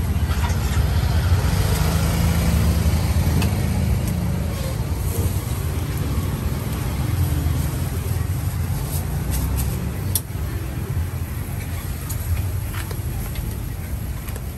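Street traffic: vehicle engines running with a steady low rumble, with a few small clicks over it.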